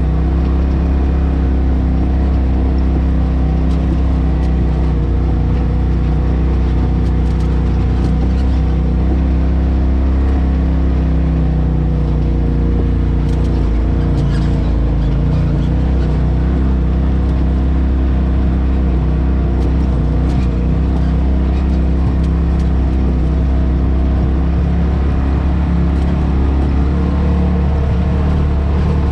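Polaris RZR side-by-side engine running at a steady pace while driving, a low even drone with scattered light clicks and rattles.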